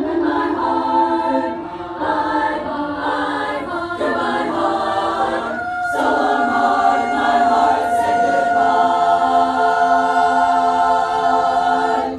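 A group of voices singing a cappella in harmony, moving through short phrases and then holding one long chord from about halfway through.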